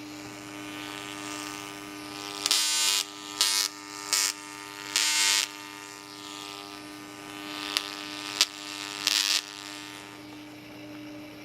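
Homemade Tesla coil buzzing steadily at its interrupter frequency, a shaver-like hum with many overtones. It is broken by about seven short, louder crackling spark discharges, the longest lasting about half a second.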